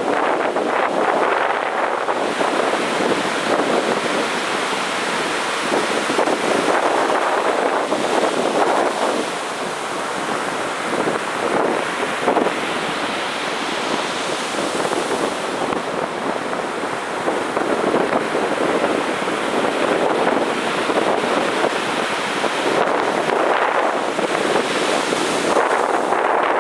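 Heavy sea surf breaking on a beach: a continuous rushing wash of waves that swells and eases a little without pause.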